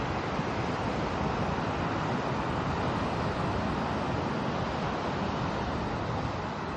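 Ocean surf and wind, a steady, even rush with no breaks.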